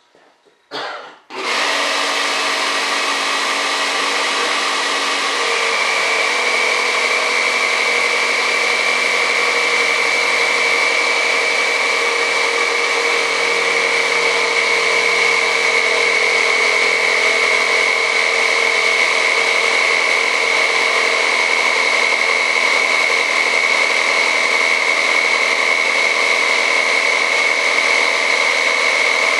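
Small air compressor switching on about a second in and running steadily, with a high steady whine joining a few seconds later.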